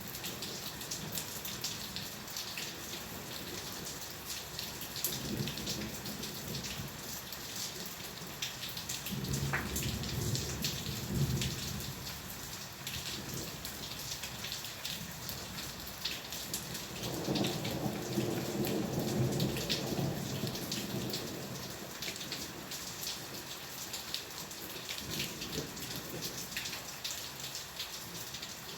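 Steady rain falling, with a dense pattering of individual drops, and low rolls of thunder rumbling under it: the loudest about ten seconds in, another long roll a little past halfway, and fainter ones near the start and near the end.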